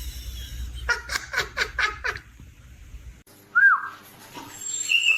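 A person laughing in a quick run of five or six short 'ha's, followed after a pause by a brief, high-pitched squeak.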